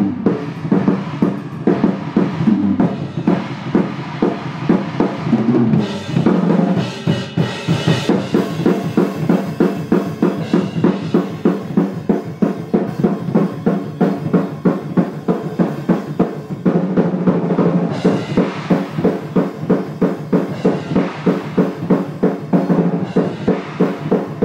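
Drum kit played hard in a metal drum-tracking take: bass drum and snare hitting in a dense, driving pattern that settles into an even, steady beat in the last few seconds.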